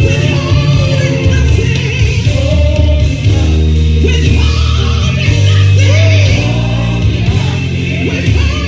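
Live gospel worship music: voices singing over long held chords and a heavy bass line.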